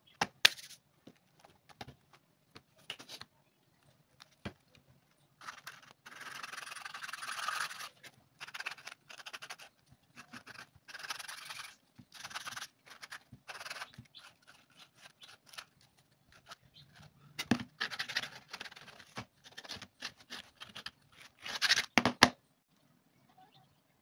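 Abrasive pad rubbed over the top face of a new rubber sandal sole in irregular bursts of scratchy strokes, roughening the rubber so the glue will grip, with a few sharp handling clicks between.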